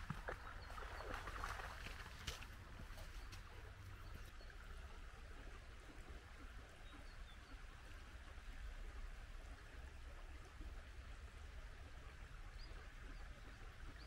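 Faint outdoor ambience: a steady low rumble under a soft hiss, with a few faint, short, high bird chirps scattered through it.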